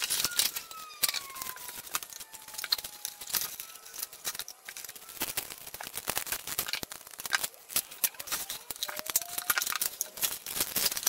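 Cardboard box packaging being handled and unpacked: the inner cardboard tray slid out of its box, with a steady run of small rustles, crinkles and clicks. A faint falling squeak near the start, like cardboard rubbing on cardboard.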